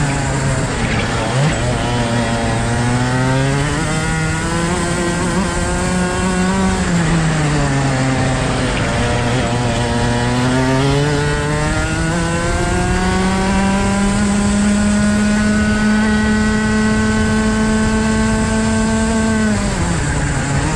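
Rotax Max 125cc two-stroke single-cylinder kart engine heard from on the kart, revving hard through a lap. Its pitch falls twice as the driver comes off the throttle for bends and climbs back each time, then holds high along a straight before dropping sharply near the end under braking.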